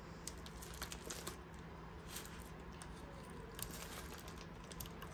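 Faint, intermittent crinkling and rustling of a plastic bubble mailer as hands work at opening it, with a few small clicks.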